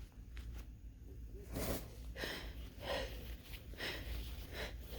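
A congested person sniffling through a stuffed nose, about five short sniffs roughly a second apart, starting about a second and a half in.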